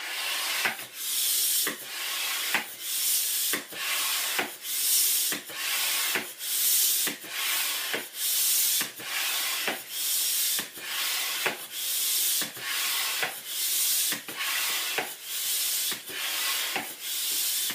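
Hand air pump being worked steadily to inflate a balloon. Each stroke gives a hiss of air with a click, a little faster than once a second.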